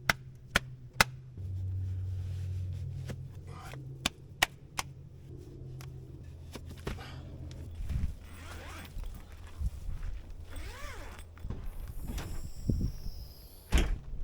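Footsteps with a series of sharp clicks and knocks, three of them quick in the first second, over a low steady hum that stops about eight seconds in.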